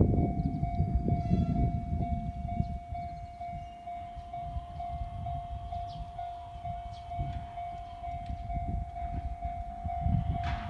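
Japanese level-crossing warning bell ringing in quick, even, repeated strokes on a single pitch. Beneath it is a low rumble.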